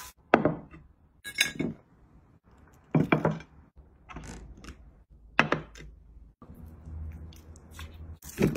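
Short knocks and clatters of food being handled and set down, about half a dozen separate sudden sounds with brief silent breaks between them.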